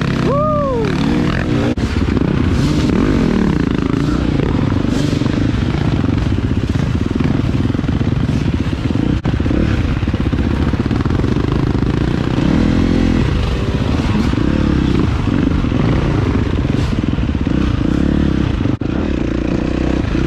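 Dirt bike engine running under load on tight trail riding. The revs rise and fall quickly as the bike is throttled on and off, most sharply right at the start.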